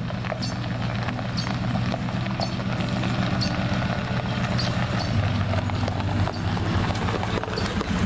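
Ford pickup truck towing a boat trailer, its engine running as it drives slowly over gravel, under background music with a steady beat about once a second.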